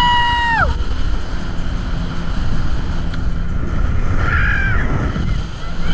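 Speedboat passengers screaming: one high, held scream lasting under a second at the start, then a shorter wavering yell about four seconds in, over the loud steady rumble of the boat's engine and wind on the microphone.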